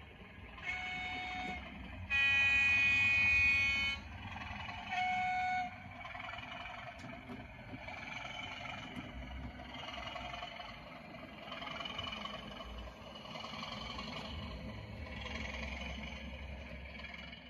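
Sound decoder of a 00 gauge model locomotive playing its horn through the model's small loudspeaker: a short blast, a long loud one, then another short blast, followed by the loco's steady engine running sound.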